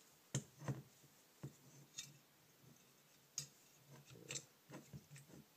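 Faint, irregular metal clicks and knocks from two Keihin carburetor bodies being wiggled and pulled apart by hand, about seven small clicks spread out, the loudest near the start.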